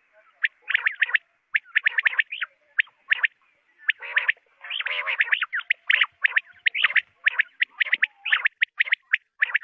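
Quails calling: quick clusters of sharp, high chirping notes, repeated over and over, with calls sometimes overlapping.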